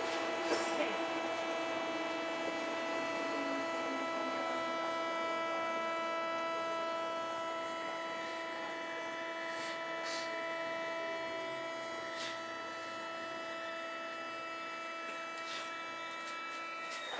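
Tokyo Metro 8000 series subway train running, heard from right above its Mitsubishi thyristor armature-chopper unit: a steady, fixed-pitch chopper whine over the running noise, with a few sharp clicks. The whine cuts off near the end.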